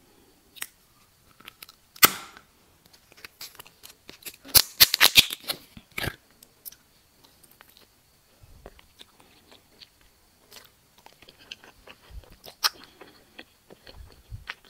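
A gummy eyeball candy's plastic wrapper torn open about two seconds in, then the gummy bitten into with a quick run of sharp clicks, followed by quieter chewing with small wet clicks, close to the microphone.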